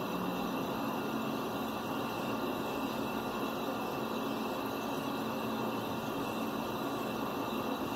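Steady, even background hiss with a faint low hum, unchanging throughout.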